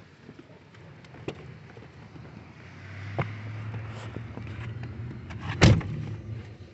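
Inside a car: a click, then a steady low hum that starts about three seconds in, and a loud thump near the end as the car door is shut.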